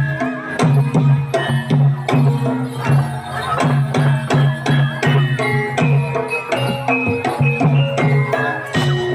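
Javanese gamelan-style traditional music: drums beat a steady repeating pulse of about two low strokes a second, under melodic lines of struck metal keys and gongs.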